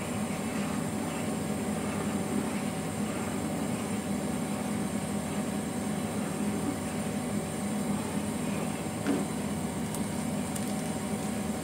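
Seasoned water and ghee boiling hard in a pan, with a wooden spatula stirring through the liquid and scraping the pan, over a steady hum.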